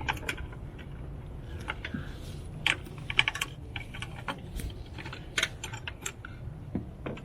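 Small parts being handled and fitted back into place: irregular light clicks and taps over a low steady hum.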